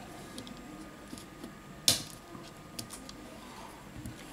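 Faint small ticks and taps of a metal pry tool against a smartphone's plastic inner cover and parts, with one sharp click about two seconds in.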